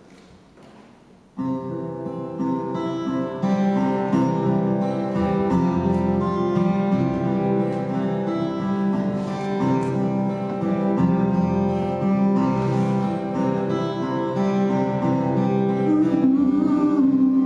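Acoustic guitar playing a song's intro: the chords begin about a second and a half in after a hushed start and ring on steadily. Near the end a man's voice comes in singing over the guitar.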